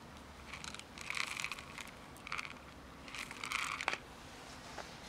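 Dry cat kibble crunching and rattling in several short spells, as cats eat it and it is handled in a plastic tub.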